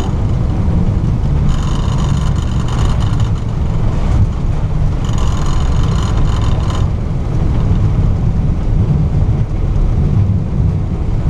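Airbus A320 slowing on its landing rollout, heard from the cockpit: a loud, deep, steady rumble of the wheels on the runway and the engines in reverse thrust. Twice a higher whine rises over it for about two seconds.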